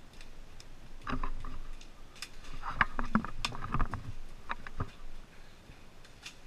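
Irregular knocks and clatter of footsteps and gear on wooden boards as a player moves quickly through a wooden bunker, busiest in the middle and tailing off near the end.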